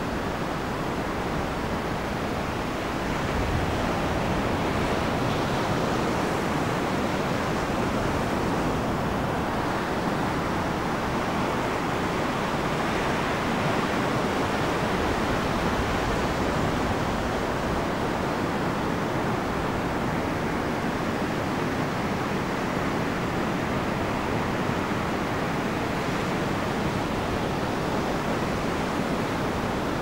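Steady wash of ocean surf mixed with wind, with no bird calls, a little louder from about three seconds in.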